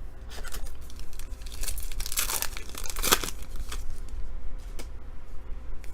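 Plastic-foil trading-card pack being torn open and its wrapper crinkled, in irregular crackling rustles that are loudest about two to three seconds in.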